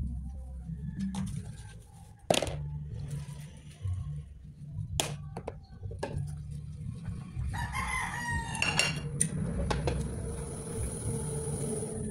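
Dishes being washed in a stainless steel sink: crockery knocking and scrubbing, with sharp clinks about two and five seconds in. About eight seconds in, a long bird call sounds for about two seconds.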